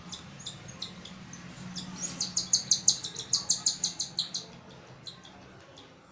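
Baby cockatiel chick begging during hand feeding: scattered high chirps, then a fast run of about five chirps a second in the middle, fading out toward the end.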